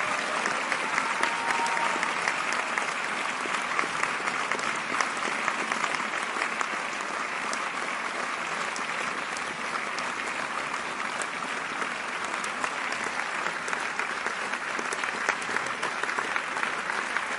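Audience clapping in sustained, steady applause.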